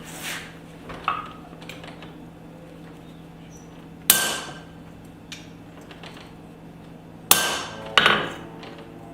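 Several irregularly spaced metal clanks and strikes of a blacksmith's hammer and tools on steel, each ringing briefly, the loudest three near the middle and end. A steady low hum runs underneath.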